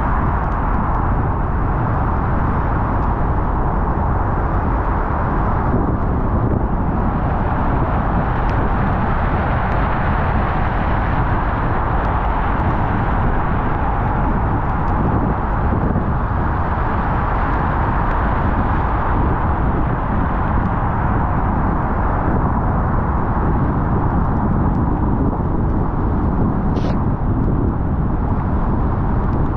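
Steady road noise of a car driving on wet pavement: a constant hiss of tyres with engine and drivetrain rumble beneath. A brief high squeak comes near the end.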